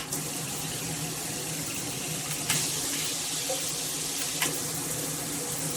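Water spraying from a handheld shower head, with two sharp clicks, about two and a half and four and a half seconds in, as the spray-mode control is pushed, the hiss of the spray shifting after the first.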